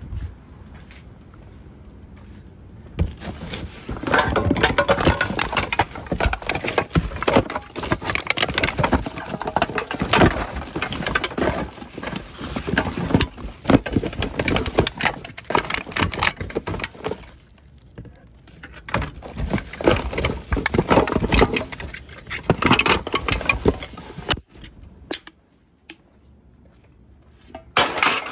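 Rummaging through a garbage bin: plastic bags crinkling and rustling, with bottles and plastic containers knocking together. It comes in two long stretches with a brief lull between them.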